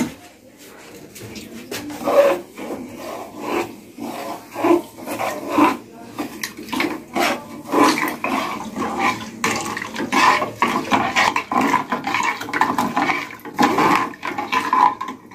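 A steel spoon stirring sugar into jaggery water in an aluminium saucepan, scraping and knocking against the pan's sides and bottom as the liquid swirls. After a sharp clink at the very start, the strokes settle into a repeated, uneven rhythm of about one and a half a second.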